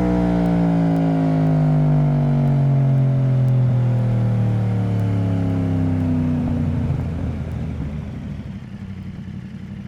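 Yamaha MT-10's 998 cc crossplane inline-four engine, its note falling steadily in pitch for about six seconds, then turning rough and fading away.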